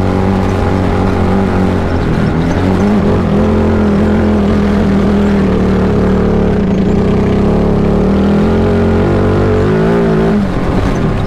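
Sierra Echo electric race car's 400-volt Hypercraft powertrain whining under way over rushing wind and tyre noise. The whine climbs in pitch about two seconds in, holds steady, then wavers and falls away near the end.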